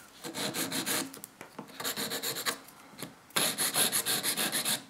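Nail file rubbing across the tip of a fingernail to shorten it, in quick back-and-forth strokes that come in three runs with short pauses between them.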